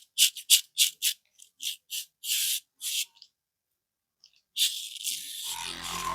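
Quick rubbing strokes, about three a second, of a barber's hands massaging, stopping about three seconds in. After a short silence, a steady rushing noise with a low hum starts near the end.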